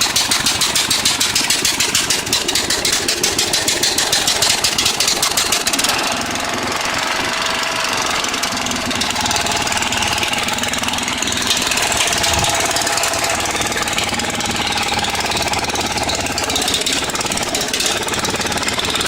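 13 hp Briggs & Stratton I/C Gold engine on a riding lawn mower running loud through a cut-down exhaust, with a rapid, even popping beat. About six seconds in the sound changes and becomes smoother and less pulsed.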